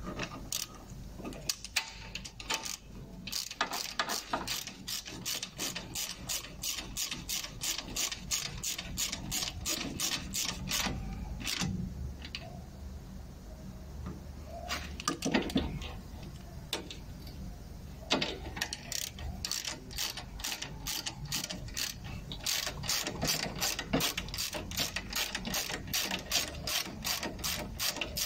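Socket ratchet wrench clicking in steady runs as it turns a brake caliper bolt, with a pause of a few seconds about halfway through.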